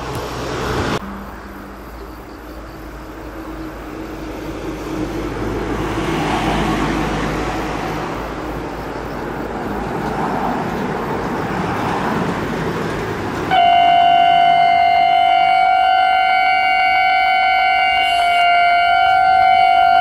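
Road traffic passing, then about thirteen seconds in a level crossing's warning alarm starts suddenly, a loud steady high-pitched ringing tone, signalling that a train is approaching.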